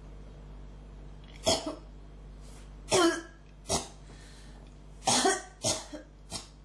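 A person coughing in bouts. There is one cough about a second and a half in, two more around three seconds in, then a quick run of four or five short coughs near the end.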